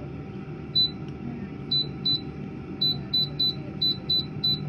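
TastyFry digital air fryer's touch-panel keys beeping: about nine short high beeps, singly and in quick runs, as the minus key is tapped to bring the timer down to 15 minutes. Under them the running fryer's fan hums steadily.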